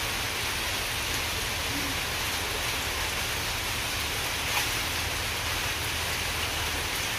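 Steady rain falling on a waterlogged yard, splashing into standing water.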